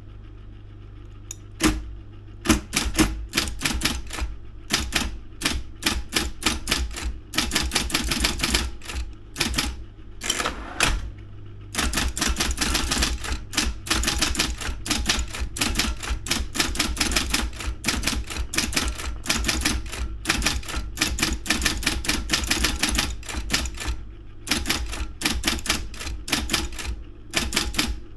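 Daro 202 electric typewriter being typed on: quick runs of sharp key strikes, several a second, broken by short pauses, over the steady low hum of its running motor.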